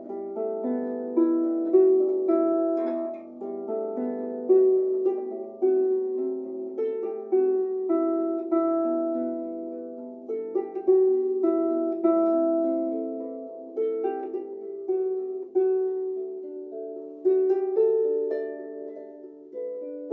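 Improvised melody on a harp-like plucked string instrument: single notes plucked one after another, each ringing on and fading as the next sounds, with no bass below the instrument's fairly high lowest strings.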